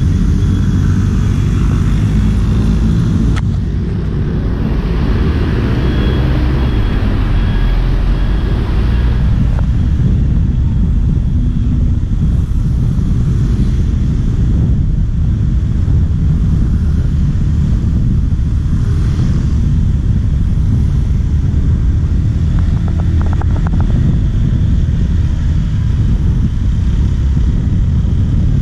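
Steady low rumble of wind buffeting an action-camera microphone while riding a bicycle, mixed with passing scooter and car traffic close by.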